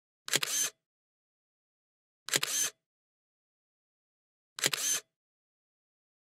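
Camera shutter sound effect clicking three times, about two seconds apart, each a quick double click, with dead silence between.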